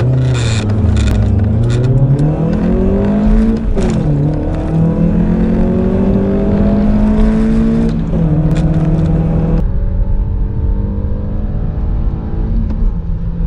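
In-car engine sound of the Audi A4 B7 2.0 TFSI and Honda Civic EJ9 1.4i four-cylinder engines accelerating at full throttle. The revs climb steadily, then fall sharply at gear changes about four and eight seconds in before climbing again.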